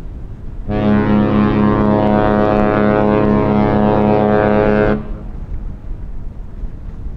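A ship's horn sounding one long blast of about four seconds, a deep steady note with a slight pulsing in it, starting and stopping sharply.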